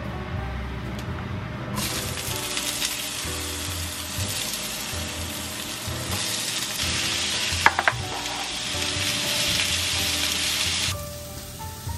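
Sliced bell peppers sizzling in hot oil in a frying pan while they are turned with metal tongs, which clink sharply against the pan a couple of times about two-thirds of the way through. The sizzle starts about two seconds in and cuts off suddenly near the end, with soft background music underneath.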